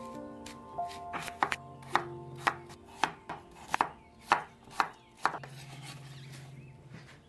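Knife chopping on a cutting board, about ten cuts at roughly two a second, over soft background music.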